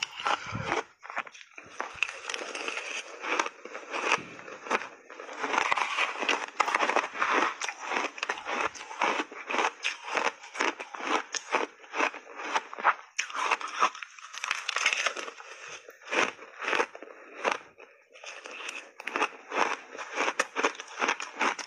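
Crunchy shaved ice coated in milk powder being chewed in big bites: a dense, irregular run of crunches and crackles.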